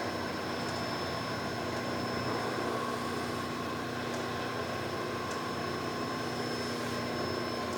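AEM Timesavers wide belt sander with only its feed belt conveyor running at a crawl: a steady machine hum with a faint whine and a few light ticks.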